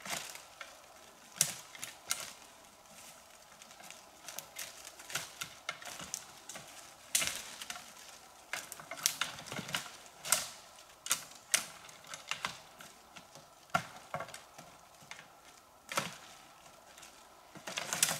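Footsteps crunching on fallen leaves and twigs along a forest track, heard as irregular crackles and snaps.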